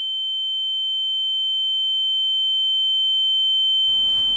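A steady, high-pitched electronic beep tone: one pure tone held without a break and slowly growing louder, with a fainter lower tone beneath that stops near the end, when room noise comes in.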